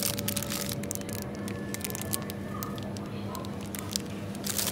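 Plastic food packets crinkling and rustling as one is picked from a pile and set into a plastic shopping basket, loudest at the start and again near the end, over a steady low hum of store background.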